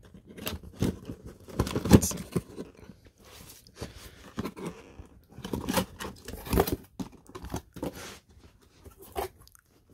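Cardboard box being opened by hand: the tab and flaps pulled and folded back, with irregular rustling and scraping of cardboard and a few sharp knocks, the loudest about two seconds in.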